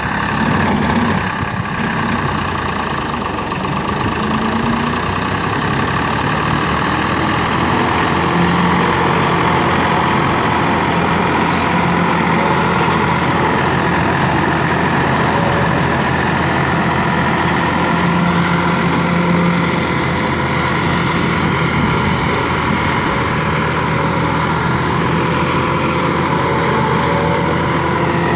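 Farmtrac 60 tractor's three-cylinder diesel running steadily under load, driving a PTO-powered Maschio mulcher whose spinning rotor shreds dry straw stubble. A loud, continuous mechanical din over a constant engine hum.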